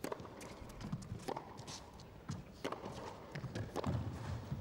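Tennis rally on an indoor carpet court: sharp racquet-on-ball hits about every second and a quarter, with softer thuds of players' feet between them.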